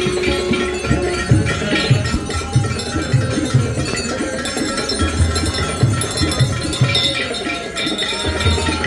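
Music with a steady drum beat, about two beats a second, and bell-like ringing over it.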